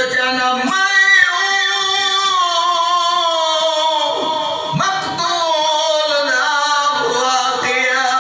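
A man chanting a soz, a Shia elegy, unaccompanied, in long held notes that glide slowly downward, with short breaths between phrases.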